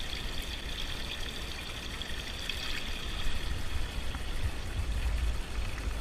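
Spring water coming down from higher ground, pouring and trickling steadily.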